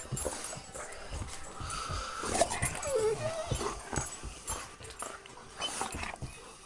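Two dogs play-wrestling at close range: scuffling and knocks, with a few short, wavering high whines around the middle.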